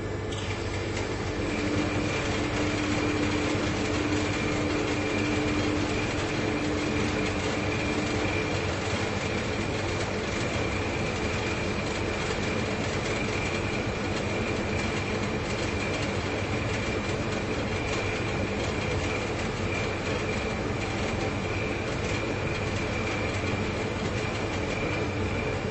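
Two large refrigerators running, their compressors giving a steady low hum with a faint high whine over it. A mid-pitched tone fades away about eight seconds in.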